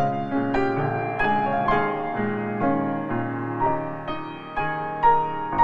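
Background piano music, a melody of single notes struck one after another.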